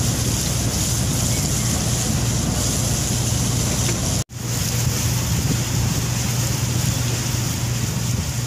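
Steady drone of a river taxi boat's motor under way, with water rushing along the hull and wind on the microphone. The sound drops out for an instant a little over four seconds in, then carries on as before.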